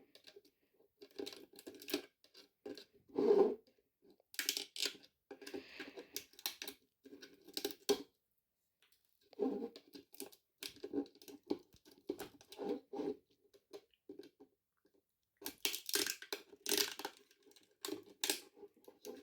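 Irregular rustling, crackling and scraping from something being handled, coming in short stop-start bursts.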